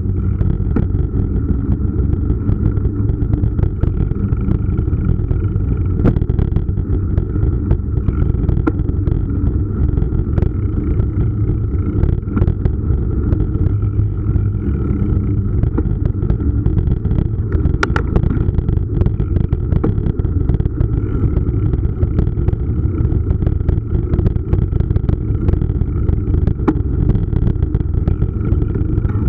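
Steady low rumble of wind and ride vibration on a bicycle-mounted camera as the mountain bike rolls along paved city paths, with many small knocks from bumps in the paving and a faint steady whine above it.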